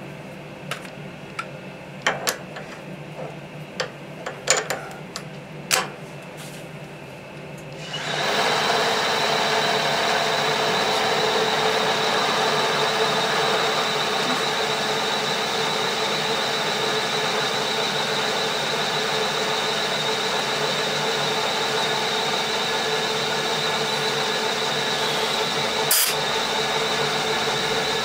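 A few sharp clicks, then a CNC milling machine's spindle starts abruptly about eight seconds in. It runs at steady speed with a steady whine while a twist drill feeds into a blue plastic block, and there is a single click near the end.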